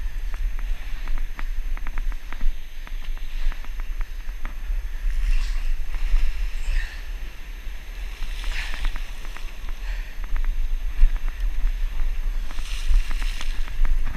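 Wind rumbling on the action camera's microphone and surf washing over lava rocks, with many light clicks from the rod and spinning reel being worked during a fight with a fish. Hissing swells of the surf come and go several times.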